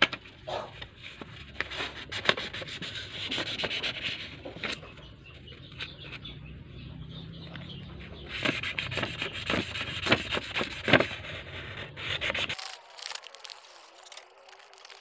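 Sandpaper rubbed by hand along a thin iron rod, rapid irregular scratchy strokes, to strip off grime before the rod is polished with metal polish. Near the end the scraping stops abruptly and only a faint hiss remains.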